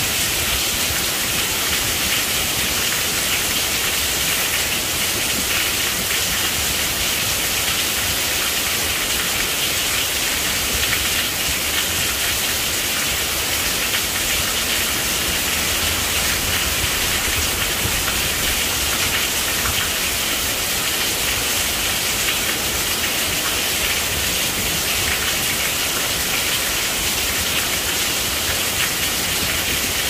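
Steady rain falling, an even, unbroken hiss with no let-up and no single drops or thunder standing out.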